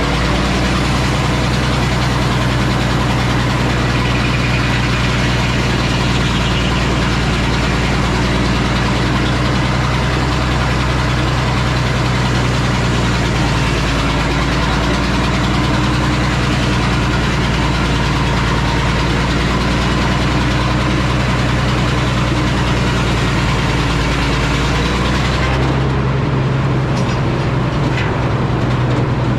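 Frick sawmill running loud and steady, its power unit droning while the circular saw rips a board from a poplar cant. Near the end the high sawing hiss falls away and the engine drone carries on.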